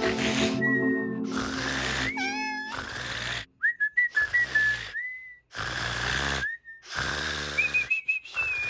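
Cartoon sound effects: a cartoon cat's snoring, hissy breaths that stop abruptly every second or two, broken up by short whistle-like pitch slides, with light music.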